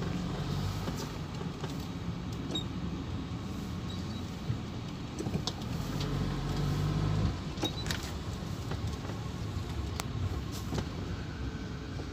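Motorhome's Ford Pinto 2.0-litre engine running at low speed as the van creeps along, heard from inside the cab, with scattered clicks and knocks. The engine note grows louder for about two seconds past the middle, then drops back suddenly.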